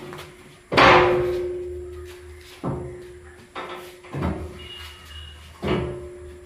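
Heavy steel clangs as the spiked threshing drum of a Swaraj combine is knocked and levered into its place in the frame: about five sharp metal impacts, the first the loudest, each leaving a ringing tone that dies away slowly.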